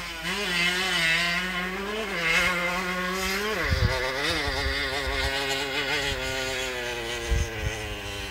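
Vintage moped engine running hard, its pitch rising and dropping a few times, then holding fairly steady.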